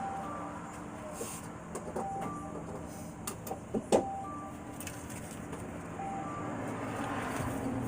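Car's two-note warning chime dinging about every two seconds over a low steady hum, with a few light knocks and a sharp click about four seconds in.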